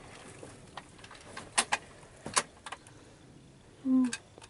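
A few faint sharp clicks and taps over quiet outdoor background. Near the end there is a short hum-like voice sound.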